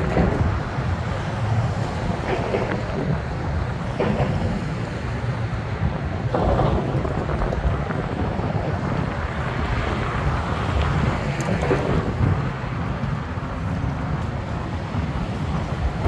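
Wind buffeting the phone's microphone in uneven gusts, over the steady sound of passing street traffic.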